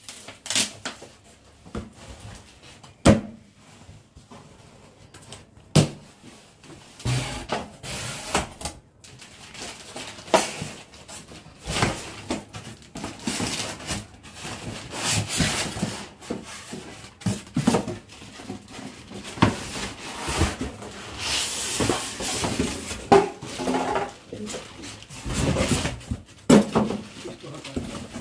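A cardboard box being unpacked: flaps pulled open and the plastic-wrapped, polystyrene-padded contents handled, giving irregular knocks and bumps and stretches of rustling plastic.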